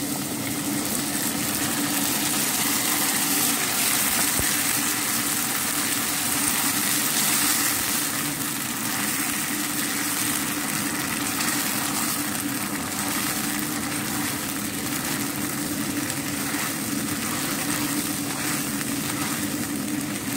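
Sweet and sour sauce cooking in a wok and being stirred with a spatula, over a steady mechanical hum with an even hiss.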